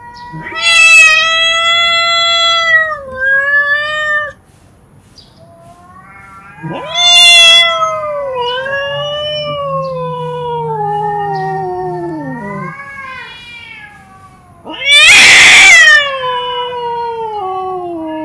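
A cat giving a run of long, drawn-out meows, several calls one after another, each sliding down in pitch. The loudest comes near the end.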